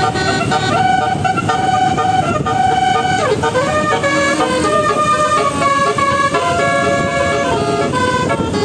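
Telolet multi-trumpet bus horn playing a tune: several notes held together that change pitch in steps, with a quick downward dip about three seconds in.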